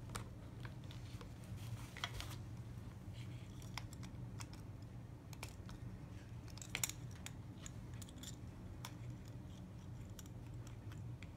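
Faint plastic clicks and handling as RJ45 network cable plugs are pushed into a cable tester and its remote unit, with one sharper click about seven seconds in, over a steady low hum.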